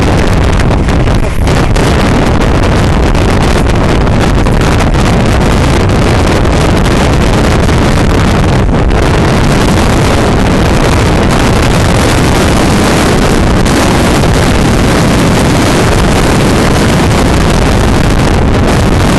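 Strong wind from a nearby tornado blasting the microphone: a loud, steady roar with no break.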